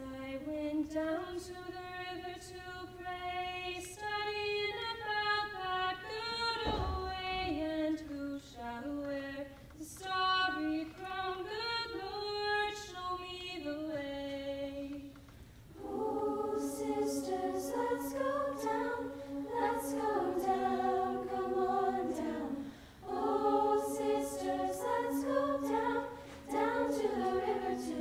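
A female soloist sings a slow melody alone, then about sixteen seconds in the mixed high-school choir comes in, singing in full harmony. A brief low thump sounds about seven seconds in.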